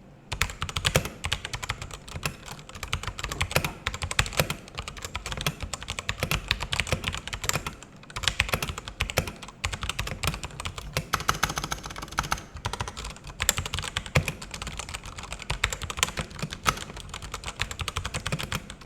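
Rapid, continuous typing on a Digital Alliance Meca Air S 65% mechanical keyboard with Outemu brown (tactile) switches, with brief pauses about eight and twelve seconds in.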